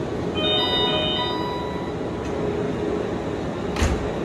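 Busy railway terminus platform ambience with a steady rumble of trains and crowd. A short run of electronic chime tones sounds in the first two seconds, and there is a single sharp knock near the end.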